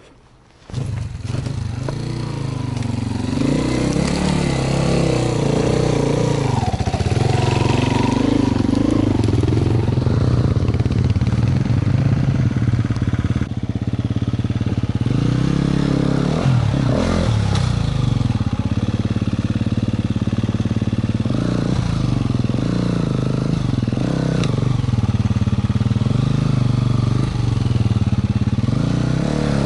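Dirt bike engines running under load as the bikes climb a steep forest trail, the pitch rising and falling again and again with the throttle. The engine sound starts about a second in.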